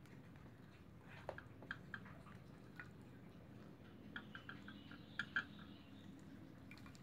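Faint small clinks and drips of a ladle scooping soup from a metal wok into a glass bowl, a dozen or so light ticks over a low steady hum.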